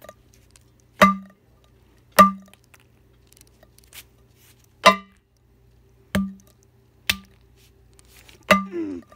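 Six sharp blows, irregularly spaced, each a hard knock with a short metallic ring. Something is being struck down on a hard floor again and again, trying to hit and break a small Lego piece.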